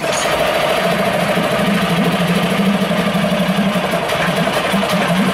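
Small four-stroke 6 hp outboard motor (CG Marine Alfa F6) starting on a pull of the recoil starter cord and settling at once into a steady fast run on choke with a little throttle. This is a cold start.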